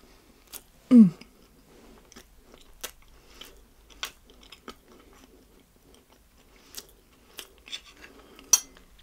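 Close-miked chewing of soft cake, with scattered wet, sticky mouth clicks. About a second in there is a short, loud, falling 'mm' hum, and a sharp louder click comes near the end.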